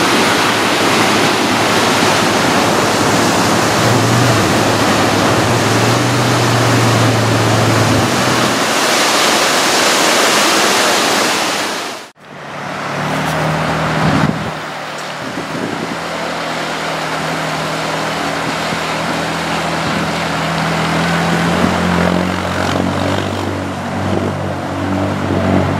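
Heavy whitewater rushing steadily from an opened hydro canal gate, cut off suddenly about halfway through. Then a small amphibious ATV's engine running steadily as it drives through a river, with water churning at its hull.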